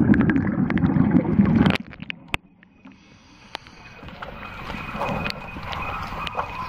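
Scuba diver's exhaled bubbles heard underwater through the camera housing: a loud, low bubbling rush with scattered clicks that stops suddenly a little under two seconds in, leaving faint water noise and small clicks that slowly build again.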